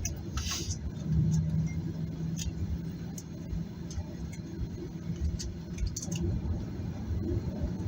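Boeing 737-800 cabin noise while taxiing after landing: a low rumble, with a steady hum that comes in about a second in. Scattered small clicks and rattles sound over it, with a short hiss near the start.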